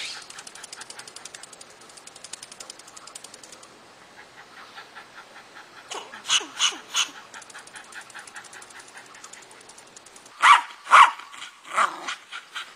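A gray squirrel scolding in fast runs of clicking chatter, about ten clicks a second, with three sharp calls about six seconds in. Near the end a Welsh terrier barks loudly three times.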